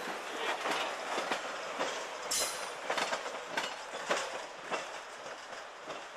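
Freight train rolling on the rails, its wheels knocking in an irregular series of clacks and clanks over a steady rumble, dying down slightly near the end.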